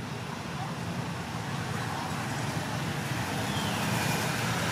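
Road traffic: motorbike and small vehicle engines running by, a steady rumble that grows a little louder toward the end.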